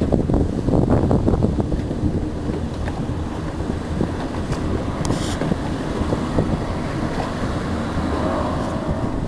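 Wind buffeting the microphone over the steady drone of RIB boat engines and water rushing by at speed, with a faint engine note rising near the end.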